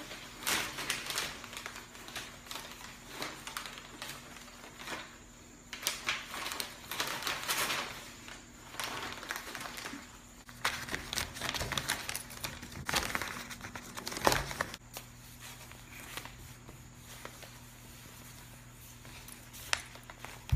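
Newspaper pages crinkling and rustling in irregular bursts as a kitten paws at them and burrows among them.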